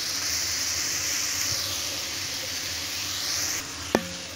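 Potato, onion and tomato bhujia sizzling steadily as it fries in an aluminium kadhai. Near the end the sizzle drops away and a single sharp metallic clink rings briefly.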